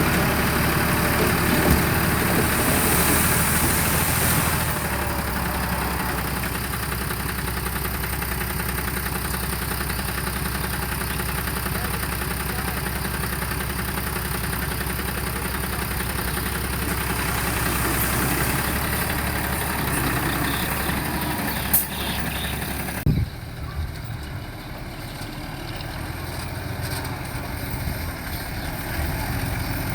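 Heavy diesel engines of construction machinery running steadily, mostly at idle. The sound changes abruptly about three-quarters of the way through, then builds again near the end.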